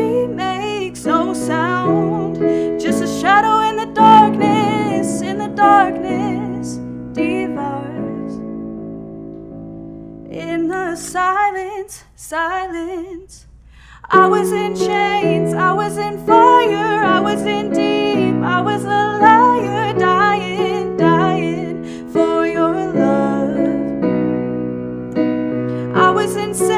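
A woman singing a song with vibrato over held chords. Near the middle the chords fade away, leaving a few sung notes, and then the full accompaniment comes back in.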